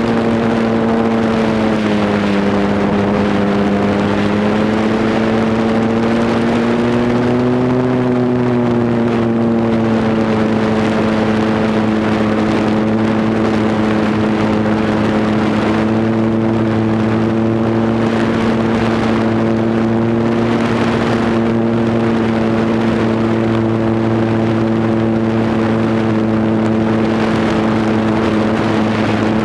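Cub airplane's engine and propeller running steadily in flight, heard from a GoPro mounted on the aircraft. The pitch dips slightly about two seconds in and rises briefly around eight seconds in, then holds steady.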